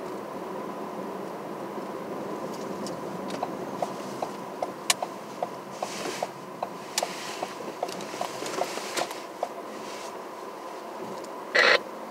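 Road and engine noise heard inside a moving car, with a faint steady high tone. Through the middle comes a regular run of light clicks, about two or three a second. Near the end there is one short, loud burst.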